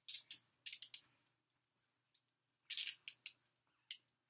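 Steel handcuffs being handled: short bursts of metal clinking and jingling, a cluster in the first second, another about three seconds in, and a last clink near the end.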